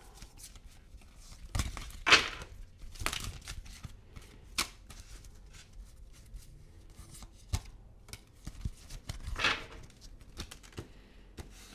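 Tarot cards being handled: scattered papery rustles, flicks and light taps, with a few louder swishes.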